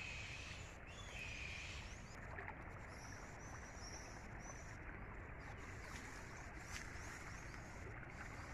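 Muddy floodwater rushing steadily over flooded grassland, an even wash of noise, with a few short bird chirps around the middle.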